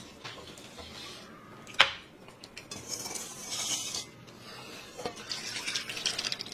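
Tableware clinking and scraping at a meal. There is a sharp clink about two seconds in, then stretches of light clattering and scraping.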